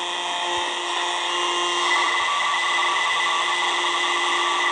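Shortwave radio teletype (RTTY) signal from the small speaker of a Tecsun R9012 portable receiver: steady data tones over static hiss. The tones grow a little stronger about two seconds in.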